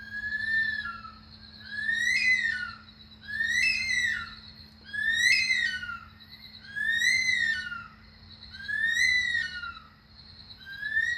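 Bush stone curlew wailing: a series of whistled calls, about one every one and a half to two seconds, each rising and then falling in pitch. A steady high insect trill runs behind them.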